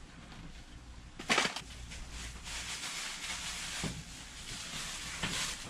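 Kitchen clean-up handling noise: a sharp knock about a second in, then a steady rushing noise with a few light knocks, easing off near the end.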